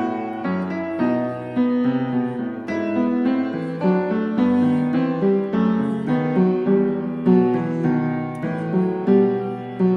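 Background piano music, single melody notes over held chords.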